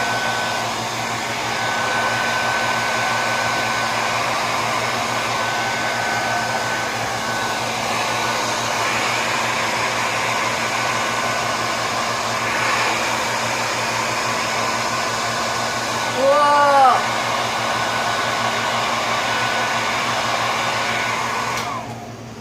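Hand-held blow dryer running steadily with a high whine over its air noise, blowing out poured paint, switched off near the end. About two-thirds of the way through, a short pitched sound briefly rises above it.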